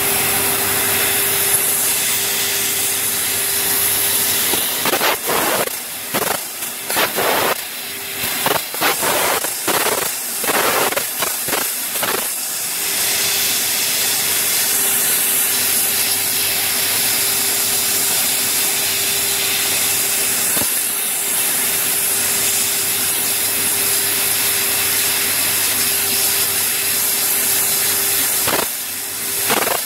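Fiber laser cutting machine cutting sheet metal: the assist gas jet at the cutting head hisses steadily with a steady hum under it. From about five to twelve seconds in, and again near the end, the hiss stops and starts in quick short spurts.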